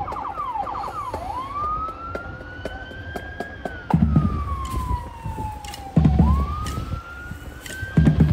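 Emergency vehicle siren: a few quick yelps, then a slow wail that rises and falls, twice. Heavy low drum hits come about every two seconds, with light ticking between them.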